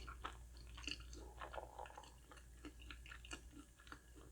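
Close-up eating sounds: a person chewing a fried chicken croquette, with many small, irregular crackles from the crisp coating.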